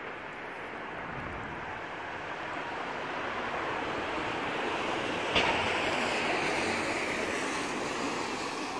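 Tyres hissing on a wet road as a car goes by, the hiss slowly swelling and then fading. A single sharp click about five seconds in.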